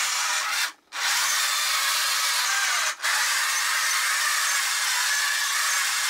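Small electric drive motors and gearbox of a 1/48 scale wired remote-control model tank running with a steady whirring, gear-grinding buzz. The sound cuts out briefly about a second in and dips for an instant near three seconds, then resumes.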